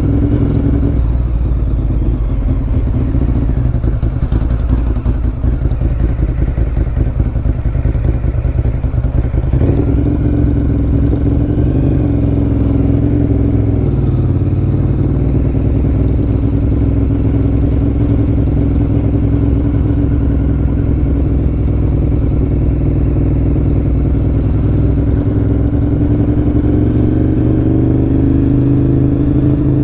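Engine of a 2013 Ducati Monster 1100 EVO, an air-cooled L-twin breathing through a Termignoni exhaust, running continuously. It sounds ragged and rattly for roughly the first nine seconds, then settles into a steady note whose pitch climbs slowly near the end.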